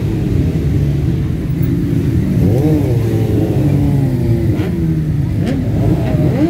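Motorcycles moving off slowly in a dense pack, many engines running at once with overlapping revs rising and falling over a steady low rumble, busiest a couple of seconds in.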